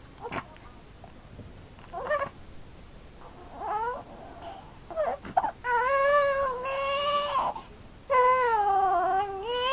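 Seven-week-old baby hiccuping and fussing: a few short hiccup sounds and a brief whimper, then two long wailing cries in the second half, upset by the hiccups.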